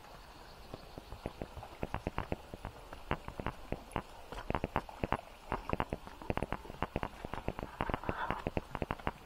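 Footsteps crunching over stones and dry leaf litter on a path. A quick, irregular run of crisp crackles begins about a second and a half in.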